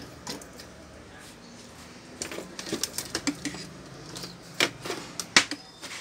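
Irregular series of sharp clicks and knocks from about two seconds in, the two loudest near the end: things being handled on a workbench.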